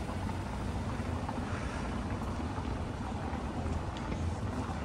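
Wind rumbling on the microphone over steady outdoor street ambience, with a few faint ticks near the end.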